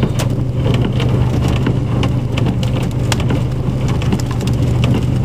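Heavy rain, with many sharp ticks of drops or hailstones striking close by, falling in a hail storm. A steady low hum from a running vehicle sits under it.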